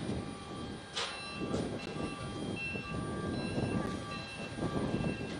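Cargo-handling machinery on an airport apron, a forklift among it, makes a steady mechanical rumble and clatter, with a sharp clank about a second in.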